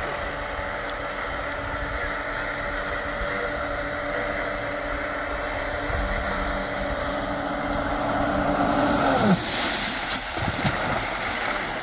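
Self-built electric surfboard's motor whining steadily and getting louder as it approaches, then dropping sharply in pitch as it passes close about nine seconds in, followed by the hiss of water spray from its wake.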